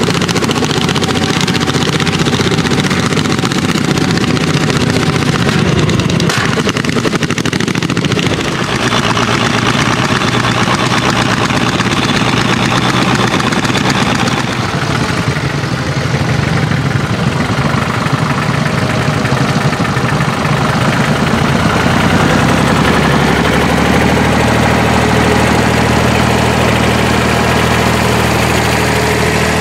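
Vintage tractor engines working under load while pulling ploughs, heard in several successive shots. The middle shot holds a Fordson Super Major and Landini hot-bulb tractors. Near the end a Porsche Diesel Super runs with a steadier, lower engine note.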